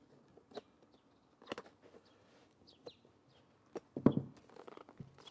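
Leather armrest cover being pried over its plastic base with a red-handled pry tool: scattered small clicks and creaks, then the loudest sound, a dull knock about four seconds in as the pry tool is laid down on the cloth-covered bench.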